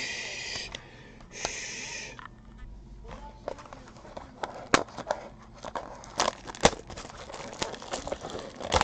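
A basketball card pack being torn open: two short ripping strokes of the wrapper near the start, then crinkling of the wrapper with many sharp clicks and snaps as the cards are handled.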